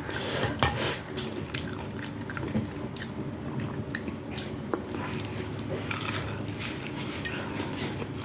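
A person chewing food close to the microphone, with many small wet mouth clicks and smacks, over a faint steady low hum.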